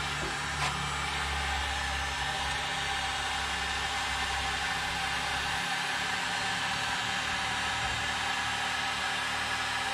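Electric heat gun running steadily, its fan and element giving an even whir. A light click sounds about half a second in.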